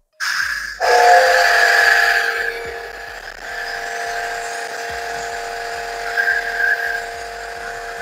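Benz BZ-8570 electric high-pressure washer running: a steady motor-and-pump whine with a few held tones over a hiss, kicking in abruptly at the start and rising a step a little under a second in. Not too noisy for a pressure washer.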